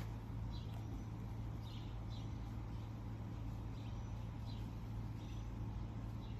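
Birds chirping over a steady low motor hum and an even background hiss.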